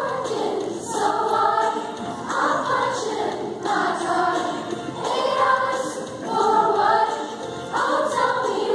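Sixth-grade girls' chorus singing together, the song moving in short phrases of a second or so.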